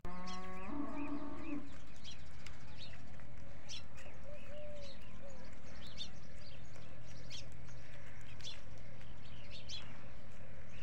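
A goat bleats once, a long call that steps up in pitch and lasts about a second and a half; a fainter short bleat follows about four seconds later. Birds chirp throughout.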